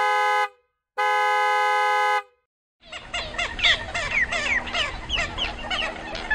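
Car horn sounding twice in steady, even honks, each about a second long. About three seconds in, a loud, dense chorus of many birds starts, calling over one another in short, overlapping squawks.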